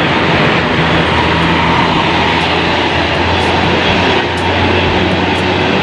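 Large bus running steadily: a continuous noisy engine sound with a low hum underneath and no horn melody.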